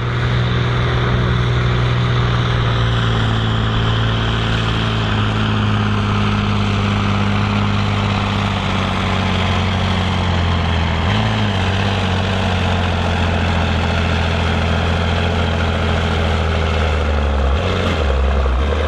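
Case IH Magnum 8950 pulling tractor's diesel engine running steadily at low revs. Its pitch shifts briefly about halfway through and changes again near the end, as black smoke puffs from the exhaust.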